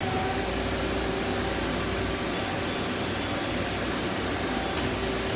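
Steady machine-shop hum: an even whirring drone with a low hum and a couple of faint steady tones, unchanging throughout.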